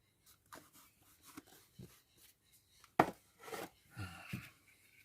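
Small tools and parts being handled on a workbench: scattered light clicks and taps with brief rustling, and one sharper knock about three seconds in.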